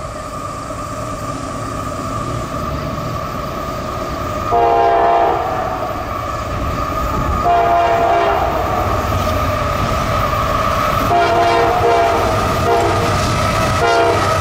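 CSX freight train's diesel locomotive approaching and growing louder, with its air horn sounding a series of blasts from about four seconds in: three long, then a short one, then another beginning near the end.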